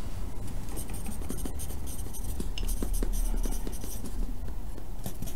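Pencil writing on a spiral-bound paper notepad: a run of short strokes and light ticks as words are written out.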